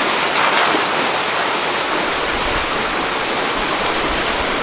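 A truckload of mullet and water sliding out of the back of a truck onto a wet concrete floor, a steady rushing, splashing pour.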